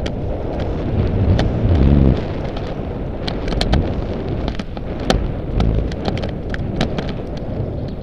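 Mountain bike riding fast downhill over a leaf-strewn dirt trail, heard through a helmet-mounted camera: wind buffeting the microphone and tyres rolling over the ground make a constant rumble, which swells twice, with frequent sharp clicks and rattles as the bike takes bumps.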